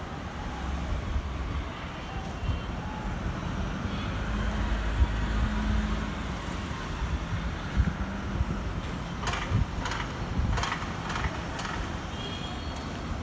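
A low, steady engine rumble of vehicle traffic, with a handful of sharp clicks or knocks about two-thirds of the way through.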